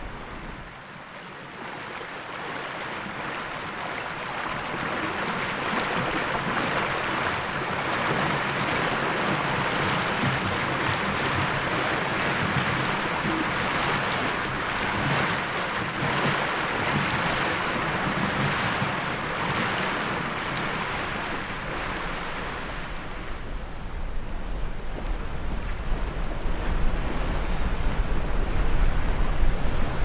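Hunter 41 sailboat sailing in strong wind, heard onboard: a steady rush of water along the hull mixed with wind. In the last several seconds it grows louder, with a deeper low rumble.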